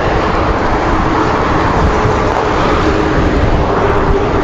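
Steady, loud rush of wind across the microphone mixed with road traffic noise from the expressway below, with faint steady engine-like tones underneath.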